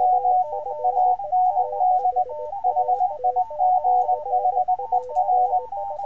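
Several Morse code (CW) tones at different pitches, from about 500 to 900 Hz, keyed on and off rapidly and overlapping, with the 735 Hz signal sent from fldigi the loudest of them. They play through a homebrew resonant bandpass speaker made from a small speaker in a shampoo bottle.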